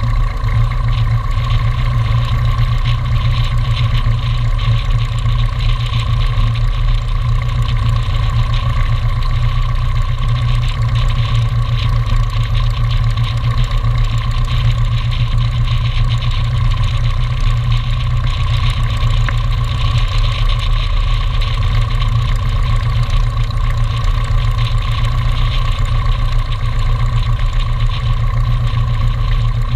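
Light aircraft's piston engine running at a steady idle, an even low rumble that holds level throughout with no revving.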